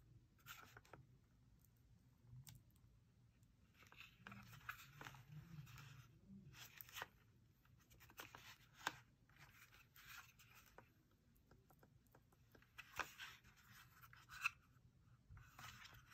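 An Astro A10 Gen 2 plastic gaming headset being handled: faint rubbing and scraping of its plastic shell, headband and fabric earcups, with a few sharp clicks.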